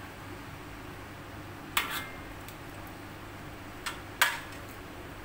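A metal spatula knocking against a metal wok: three short, sharp clinks, about two seconds apart and then two close together near the end, the last the loudest, over a steady background noise.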